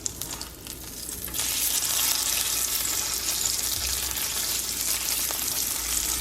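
Salmon fillet frying skin-side down in olive oil in a pan on medium heat, sizzling and crackling. About a second and a half in, the sizzle gets suddenly louder and stays steady.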